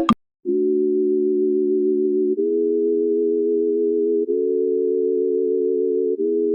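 Steady electronic tones forming a low held chord that shifts slightly in pitch about every two seconds, starting after a short silence.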